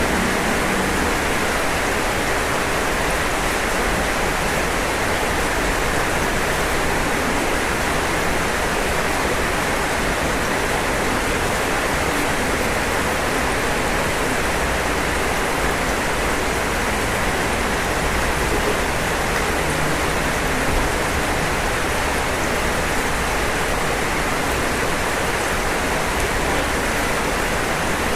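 Rain falling steadily on a roof, a constant even hiss with no single drops standing out.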